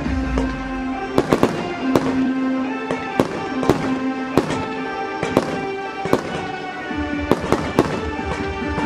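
Aerial fireworks going off in an irregular series of sharp bangs, about two a second, over music with long held notes.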